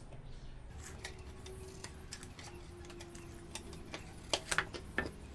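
Light clicks and taps of a tape measure and pencil handled against a ceramic tile while it is measured and marked for cutting, with a few sharper clicks about four to five seconds in.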